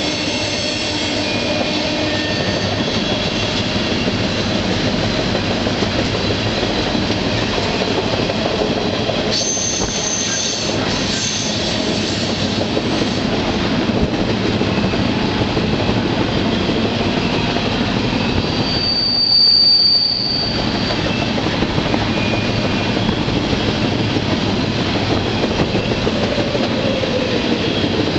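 Freight train rolling along, heard from aboard one of its cars: a steady rumble of wheels and cars on the rails. Brief high-pitched wheel squeals come about ten seconds in, and a louder one near twenty seconds.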